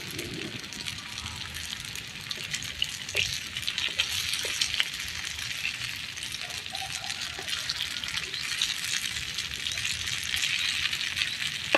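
Food frying in hot oil over a cooking fire: a steady sizzle with scattered pops and crackles.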